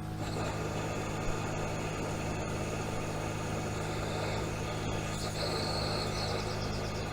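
An engine running steadily at idle, with a brief higher hiss about five seconds in.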